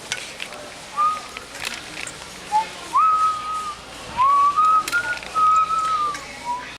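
A person whistling a string of pure notes around one pitch: a few short notes, then longer held ones, several of them sliding up at the start.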